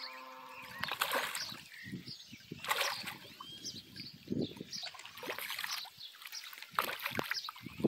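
A hooked pacu-type round fish splashing and thrashing at the water surface in several separate bursts as it is played in close to the bank.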